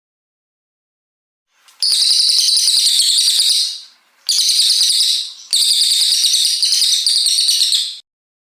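A brown cililin songbird singing long, rapid, high-pitched trills. It starts about two seconds in and gives three runs of fast repeated notes, with short breaks between them, before stopping near the end.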